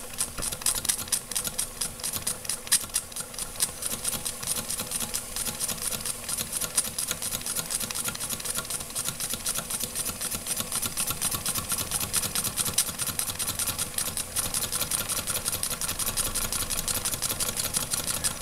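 Weeden No. 14 toy steam engine running steadily, a rapid, even clatter of its moving parts and exhaust.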